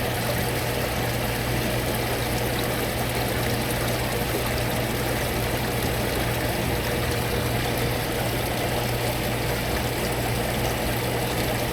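Hot tub pump running with water circulating and splashing steadily, over a constant low hum.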